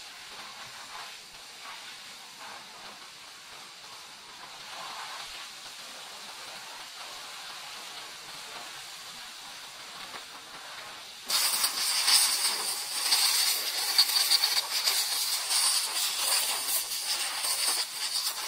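Pressure-washer spray hissing against a car's bodywork: a steady, quieter hiss, then a much louder spray that starts suddenly about eleven seconds in.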